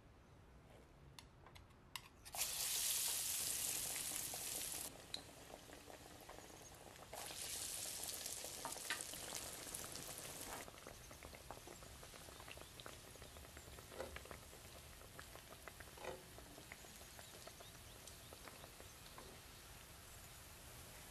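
Chickpea falafel patties deep-frying in hot oil. The sizzle comes in two loud stretches, a couple of seconds in and again around seven seconds, then settles into a quieter steady bubbling with scattered pops and crackles.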